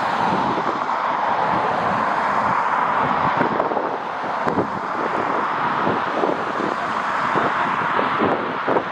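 Strong gusty wind buffeting the microphone in rapid low thumps over a steady rush of jet engine noise from a passing airliner.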